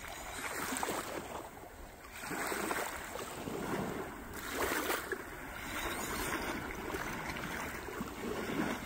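Small waves washing onto a sandy beach, the sound of the surf swelling and fading every couple of seconds.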